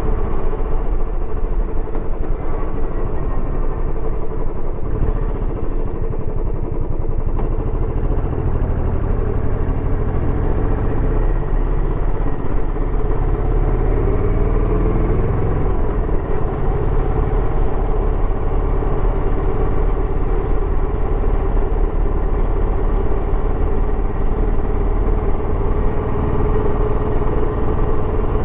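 Royal Enfield Bullet 350X's single-cylinder engine running through its stock exhaust while riding, with the engine pitch shifting up and down about halfway through.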